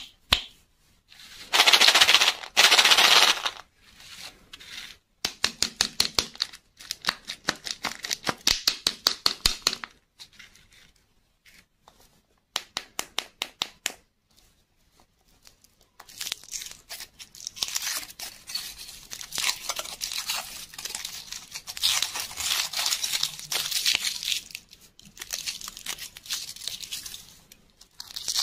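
Foil wrapper of a Kinder Surprise chocolate egg being handled and peeled off by hand. It starts with a few loud crinkling bursts and runs of quick clicks, then crinkles without a break for the last dozen seconds as the foil comes away from the chocolate.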